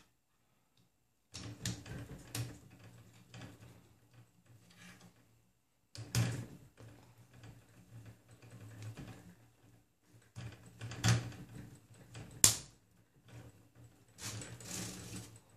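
Clicks and rustles of hand-assembly as linear bearings are pressed into the bearing holders of a 3D-printed plastic X carriage and the carriage is fitted onto the steel rods, with scattered sharp clicks and one loudest snap about twelve seconds in.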